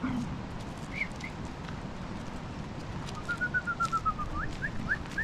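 Bird calling: two short chirps, then a quick run of short whistled notes falling slightly in pitch, followed by several short rising whistles near the end.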